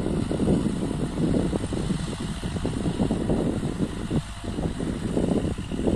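Kubota MU4501 tractor's four-cylinder diesel engine running under load as it pulls a full-depth plough through soil, a low, uneven engine noise.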